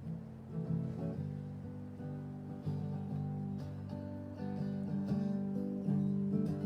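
Acoustic guitar strummed in sustained chords, a new strum about every second.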